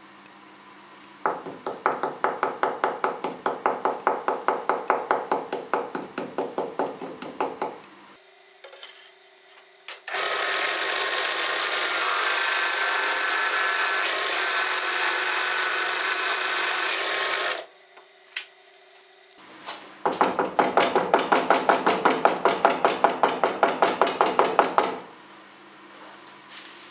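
Rapid, even knocking on the table saw top for several seconds, jiggling a phenolic-coated plywood sander disc balanced on a pin to find its heavy side. In the middle, a drill press bores steadily into the disc for about seven seconds, taking weight off the heavy spot to balance it; then the rapid knocking starts again.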